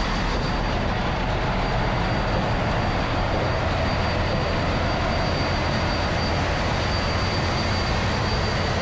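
Steady, loud din of a ship's engine room with its diesel machinery running: a deep rumble under a dense mechanical roar and a thin, steady high whine. It holds level throughout, with no single knock or event standing out.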